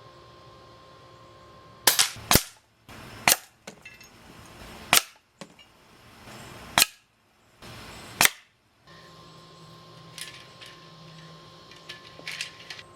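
Umarex Notos .22 pre-charged pneumatic air rifle firing: six sharp cracks spread over about six seconds, the first two close together.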